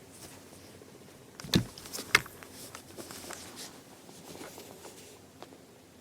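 A cat playing with a string on the floor: two soft thumps, about a second and a half and two seconds in, as it pounces and lands, with light pattering and scuffling taps around them.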